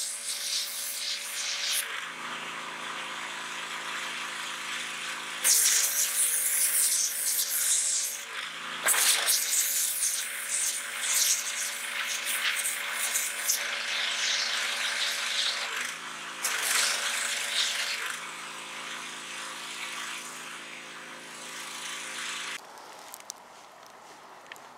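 Pressure washer running: a steady motor hum under the hiss of the water jet blasting a carved pumpkin apart. The hiss swells in several stretches and cuts off near the end.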